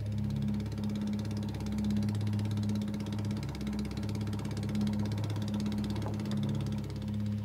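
Small engine running steadily on the fishing boat with a rapid, even beat, under soft background music.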